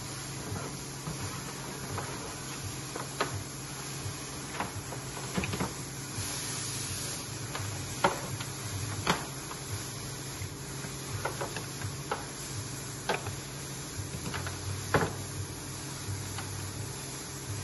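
Scattered clicks and light knocks of cables, plugs and a power adapter being handled and plugged in, over a steady background hum and hiss.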